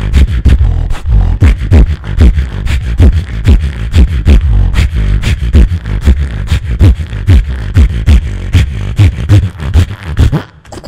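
Human beatboxing into a handheld microphone through a PA: a fast run of drum-like beats and clicks over a deep bass. It stops suddenly just before the end.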